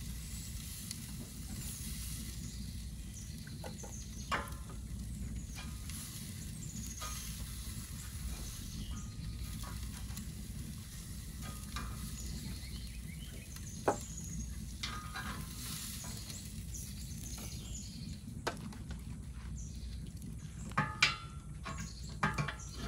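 Hot pork chops sizzling faintly as metal tongs lift them from a steel wood-stove cooker onto a metal pan, with scattered clicks of tongs on metal. Near the end, a few louder metal clanks as the cooker's steel door is shut.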